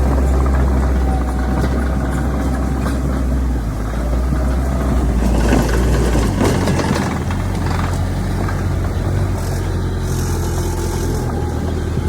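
Heavy diesel engine of earthmoving machinery running steadily; about halfway through its note steps up to a higher pitch.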